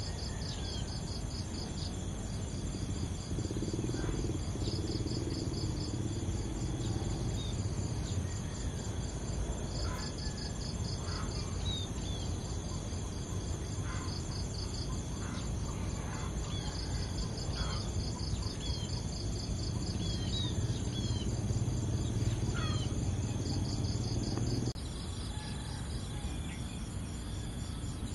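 Insect chorus: a steady high-pitched buzz with repeating chirping trills, joined now and then by short bird chirps. The low background noise drops about 25 seconds in.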